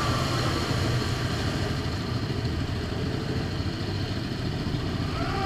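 ATV engine running while riding, a steady rough rumble without clear revving.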